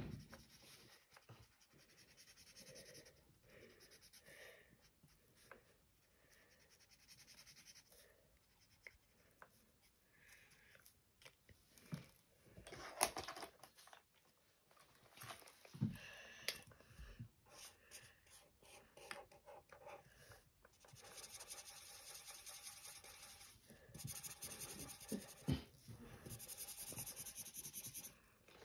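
Marker pen tip rubbing faintly on paper in repeated short strokes as a drawing is coloured in. A few brief knocks and taps stand out near the middle.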